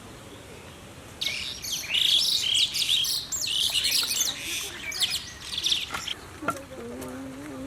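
A bird chirping and twittering in quick, high notes for about five seconds, then a short low steady hum near the end.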